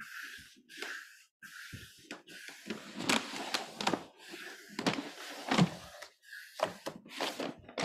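A squeegee scraping over self-adhesive vinyl wall film as the film is pressed onto a wall, while the backing liner rustles as it is peeled away. It comes as a series of separate scraping and rustling strokes with a few sharp knocks.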